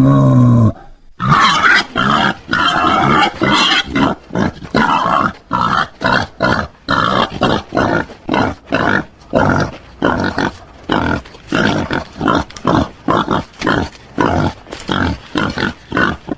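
Wild boar grunting: a drawn-out call breaks off just after the start, then a long run of short, rough grunts follows at about two to three a second.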